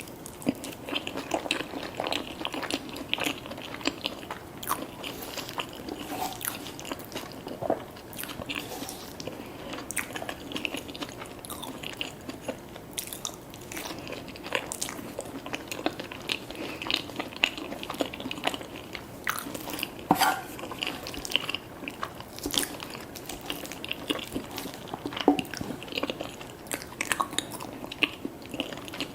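Close-miked eating of a fast-food fried chicken sandwich meal: continuous chewing, with many irregular sharp crunches.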